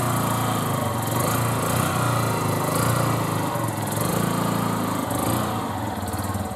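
Lifan 200 cc motorcycle engine running as the bike is ridden slowly at low speed, its note rising and falling a little with the throttle.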